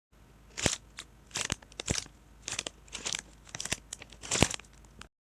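Crunching sound effect: about nine sharp, crisp crunches at irregular intervals, the loudest near the end, then it cuts off.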